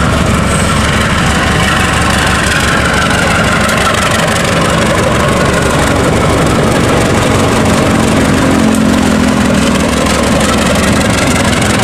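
Two KAI diesel locomotives coupled together, passing close by at the head of a passenger train, engines running loud and steady.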